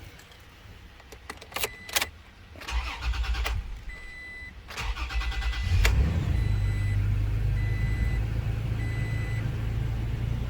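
2020 Toyota Tacoma engine started on a newly programmed key: after a few clicks the starter cranks, pauses, cranks again and the engine catches about six seconds in and settles into a steady idle, the immobilizer accepting the new key. A high warning chime beeps about once a second over the idle.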